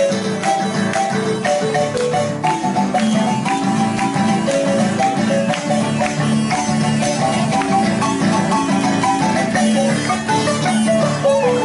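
Marimba playing quick runs of struck notes over strummed guitar accompaniment, a Nicaraguan folk dance tune played live.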